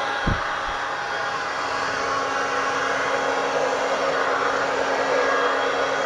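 Ordinary handheld hair dryer (not a heat gun) blowing steadily, used to push wet fluid acrylic paint across a canvas. A short low thump sounds about a third of a second in, and a steady low hum joins under the airflow about a second and a half in.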